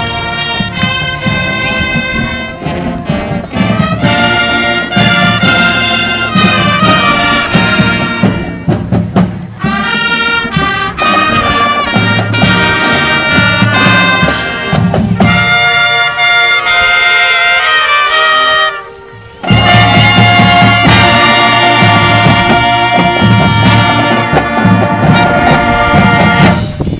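High school marching band playing, its brass (trumpets and sousaphones) carrying the music. The sound thins out and drops in level for a few seconds just past the middle, then the full band comes back in loud.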